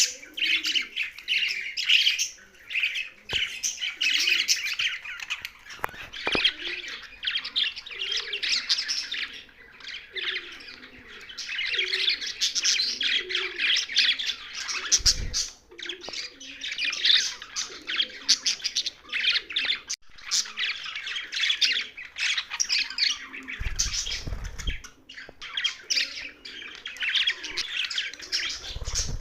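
Young budgerigars chirping and chattering in quick, dense runs of calls, coming in bouts with short pauses. A brief low rumble comes about halfway through and another a few seconds later.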